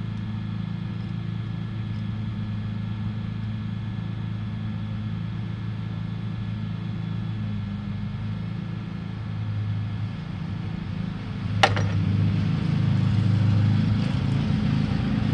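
An engine running steadily at an even pitch, growing louder in the last few seconds, with one sharp click about eleven and a half seconds in.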